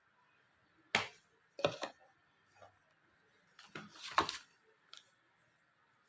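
A handful of sharp plastic clicks and knocks as parts of a portable cordless car washer are handled: single clicks about a second in and just under two seconds in, a quick cluster about four seconds in, and one last light click near the end.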